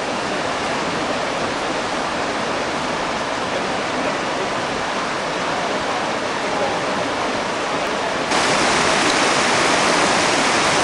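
Steady rush of whitewater from a slalom canoe-kayak course. About eight seconds in it abruptly steps up louder and brighter, as the sound of a second recording of the rapids is added.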